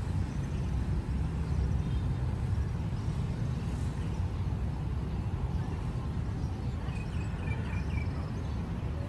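Outdoor city ambience: a steady low rumble with a few faint high chirps near the end.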